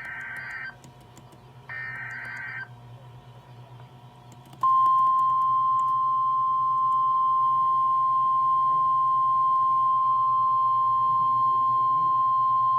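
NOAA Weather Radio alert: the last two bursts of a SAME digital data header, each under a second, then after a short gap the steady single-pitched 1050 Hz warning alarm tone, held for about nine seconds. It signals a new severe thunderstorm warning about to be read.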